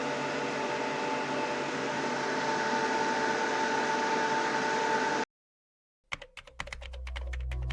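A steady machine hum with a thin high whine, cut off abruptly about five seconds in. After a moment of silence, electronic music starts with a rapid run of clicks.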